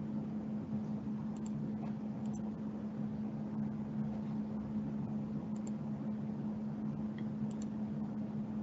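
Room tone: a steady low hum over faint hiss, with four faint clicks spread through it.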